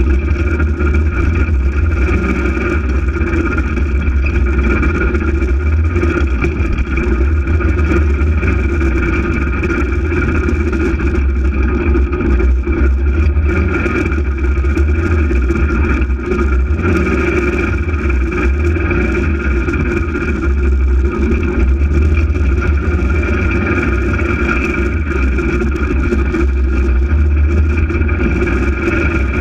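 Polaris RZR 800 side-by-side's twin-cylinder engine running steadily while the vehicle is under way.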